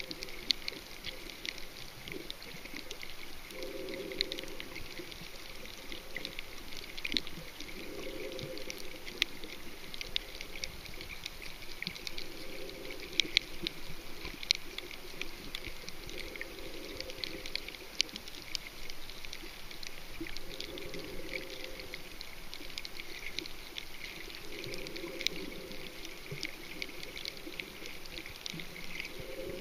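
Underwater sound on a coral reef: a steady crackle of many sharp clicks, typical of snapping shrimp, with a muffled rush of bubbles about every four seconds.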